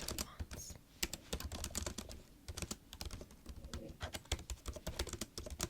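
Close-up typing on a laptop keyboard: a quick, irregular run of key clicks, several a second, with a short pause about a second in.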